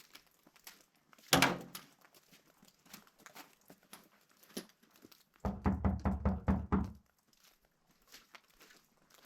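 A horse close by: scattered small knocks and clicks, a loud thump about a second in, and then a rapid fluttering snort lasting about a second and a half, typical of a horse blowing through its nostrils.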